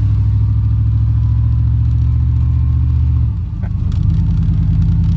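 Vehicle engine running with a steady low drone. A little past three seconds in the sound briefly dips and changes pitch, then settles at a new steady note.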